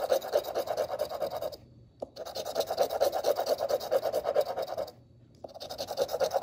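A coin scraping the coating off a scratch-off lottery ticket in rapid back-and-forth strokes. It comes in three runs, broken by two short pauses, about two seconds and five seconds in.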